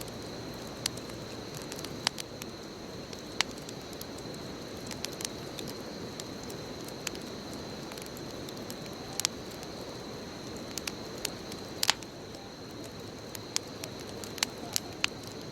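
Wood bonfire burning: a steady low rush of flame with scattered sharp crackles and pops, the loudest about two, three and a half and twelve seconds in.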